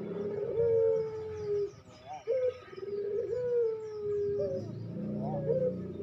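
Puter pelung (ringneck dove) cooing: two long drawn coos, each held and sliding slightly down in pitch, with short up-and-down notes between them.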